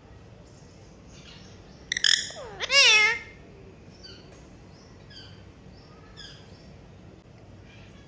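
Alexandrine parakeets calling: loud, harsh squawks about two seconds in, the longest wavering up and down in pitch, followed by a run of soft, short chirps.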